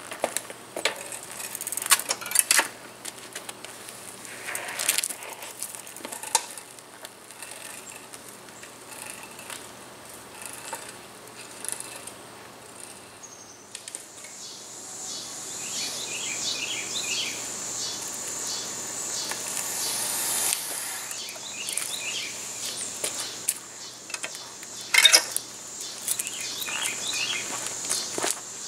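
Outdoor ambience of a steady high insect drone and repeated bird chirps, strongest in the second half. A few sharp clicks and knocks from the bicycle and footsteps come near the start and again a few seconds before the end, as the bike is wheeled away and set back down.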